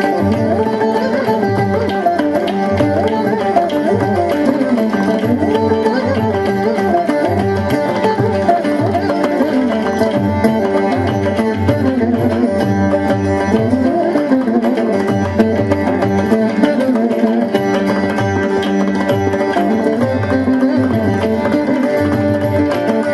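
Carnatic veena music: plucked melody lines with sliding, bending notes over a steady hand-drum accompaniment.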